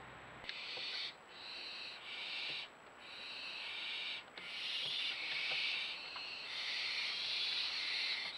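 Barn owl hissing: breathy hisses in bursts of about a second with short breaks, running together into a near-continuous, slightly louder hiss from about halfway through.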